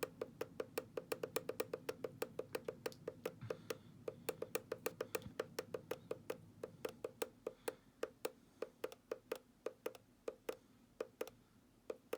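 Alarm clock's time-set button pressed over and over, a rapid run of short plastic clicks at about five a second that slows and turns uneven near the end, as the clock's time is stepped forward to reset it.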